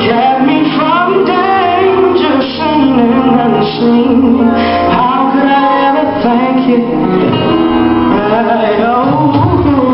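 Gospel music with singing voices over instrumental backing, the singers holding and bending long notes.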